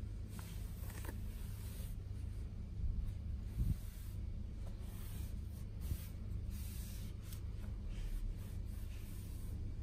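Cloth wiping and rubbing along shelf surfaces, with faint rustling and a few light knocks as items on the shelf are touched.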